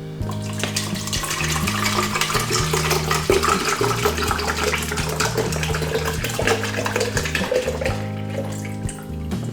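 Water pouring into a container of coarsely ground coffee to start a cold brew: a steady splashing pour that stops about eight seconds in, over background music.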